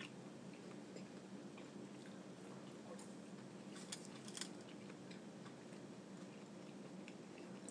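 Faint chewing and mouth sounds of someone eating close to the microphone, with a few short smacks or clicks about three to four and a half seconds in, over a low steady room hum.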